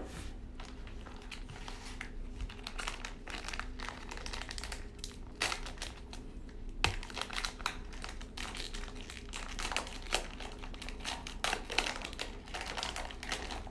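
Packaging of a sealed trading-card hobby box crinkling and rustling as it is torn open by hand, a steady run of irregular crackles and clicks.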